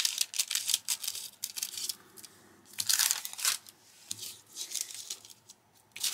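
Scissors cutting through paper in a quick run of crisp snips for about the first two seconds, then the paper being handled and rustled in a few short bursts.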